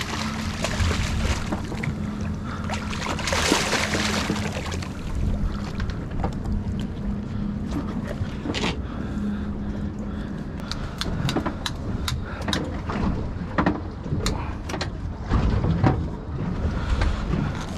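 Boat engine idling with a steady low hum, wind rushing on the microphone. A striped bass splashes at the surface, with a loud burst of splashing about three to four seconds in, then scattered knocks and taps on the deck as the fish is handled.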